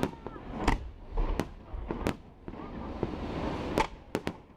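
Aerial fireworks shells bursting in sharp bangs: four evenly spaced about 0.7 s apart, then after a short pause a quick cluster of three near the end.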